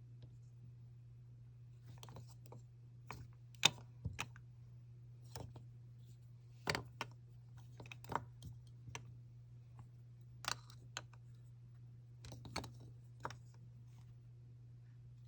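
Irregular light clicks and taps of small plastic nail-powder jars and their packaging being handled, over a steady low hum.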